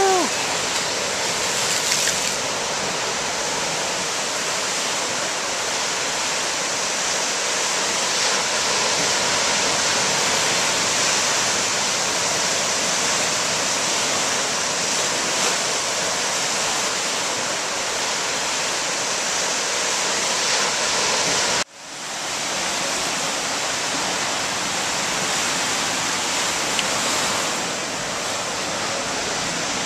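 Ocean surf breaking and washing up the beach: a steady hiss of rushing whitewater, cut off briefly about two-thirds of the way through.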